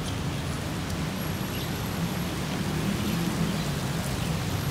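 Steady low rumble of city traffic, a constant background roar with no distinct events.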